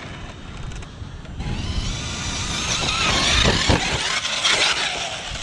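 Arrma Kraton 6S RC truck driving. A noisy whir of its electric motor and drivetrain, with tyre noise, starts about a second in, swells with a faint rising whine and then eases. It is down on power, which the owner blames on weak batteries.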